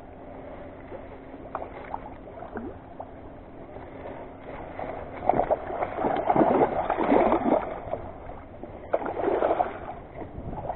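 Hooked Atlantic salmon splashing at the surface of shallow river water as it is played in to the shore, in loud irregular bursts starting about halfway through and again near the end.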